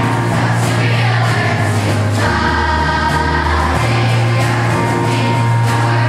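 Large children's choir singing a song together, accompanied by acoustic guitars, over sustained bass notes that change about two seconds in and again near four seconds.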